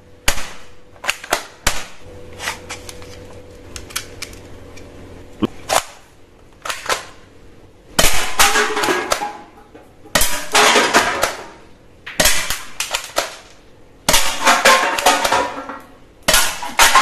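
Toy pistol firing in five bursts of rapid sharp pops, about two seconds apart, in the second half. Before them come a few scattered single clicks from the gun being handled.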